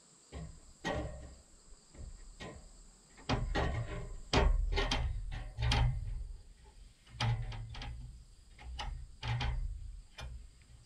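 Galvalume ridge-cap sheet metal knocking, rattling and flexing as it is carried up a ladder against a steel roof, with irregular heavy thuds carried through the roof panels. A steady high insect trill runs underneath.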